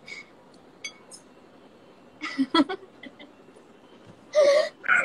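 A girl's short bursts of excited, nervous laughter and gasps: a cluster of them midway and a louder, high-pitched burst near the end. A few light clicks come in the first second.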